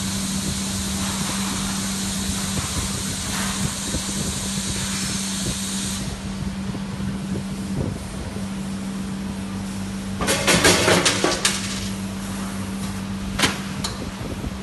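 Ice vending machine dispensing a bag of ice: a steady machine hum with a high hiss that cuts off about six seconds in, then a loud clatter of ice cubes dropping into the plastic bag and a single sharp knock near the end.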